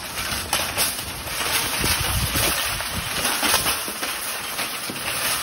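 Metal shopping cart rolling down a rough concrete slope: the wheels rumble on the concrete and the wire basket rattles and clatters, with some wind on the microphone.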